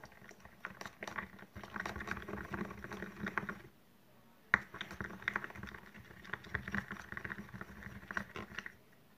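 PVA glue and liquid glue being stirred in a small cup to make slime: irregular sticky scraping and clicking of the stirrer against the cup. The stirring pauses briefly about four seconds in, then resumes with a sharp click.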